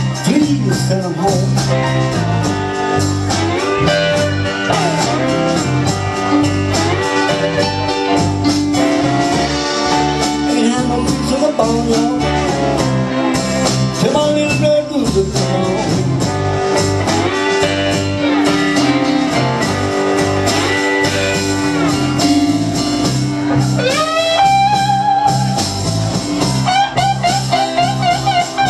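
Live blues band playing an instrumental passage: electric guitar, bass, keyboards and drums. High sliding, bent notes come in near the end.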